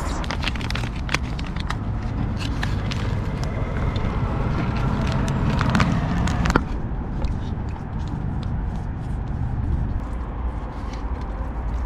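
Plastic bag of fish fry breading mix crinkling as it is shaken and poured onto paper plates, over a low rumble of wind on the microphone. About six and a half seconds in the crinkling stops abruptly, leaving the wind rumble with a few faint ticks.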